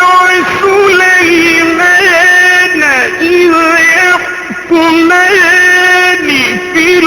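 A man reciting the Quran in a melodic chanted style, holding long, steady notes with ornamented glides between them, and a brief pause for breath about two-thirds of the way through.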